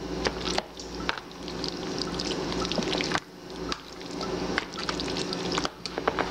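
Macaroni, ground beef and tomato sauce being stirred together with a utensil in a large pan: wet squelching and sloshing, with many small clicks and scrapes of the utensil against the pan, easing off briefly about halfway through.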